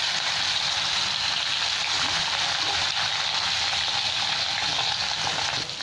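Salt-and-turmeric-coated fish pieces sizzling steadily as they fry in hot mustard oil in a wok.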